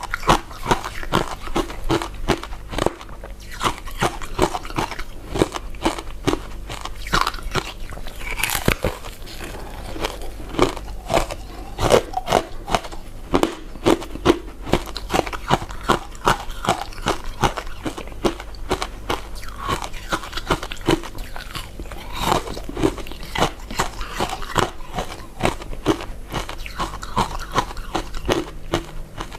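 Close-miked chewing of soft, chewy glutinous rice cakes and mochi: a dense, unbroken run of mouth clicks and bites, several a second.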